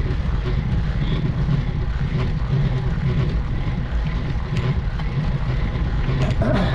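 Steady low rumble of wind and road noise on the microphone of a road bike climbing a steep grade, with a few faint ticks over it.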